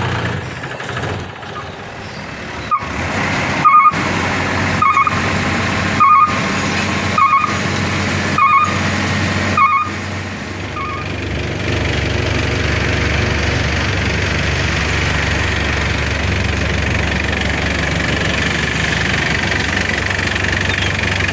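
Mitsubishi truck's diesel engine running, with a reversing beeper sounding a short tone about every 1.2 seconds, seven times, as the truck is manoeuvred. After the beeping stops, the engine sound grows louder and steadier.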